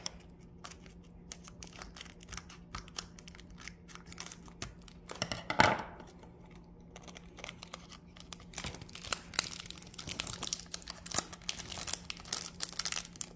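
Foil Pokémon booster pack being torn open and crinkled by hand: scattered sharp crackles, one louder rustle about five and a half seconds in, and denser crinkling in the last few seconds.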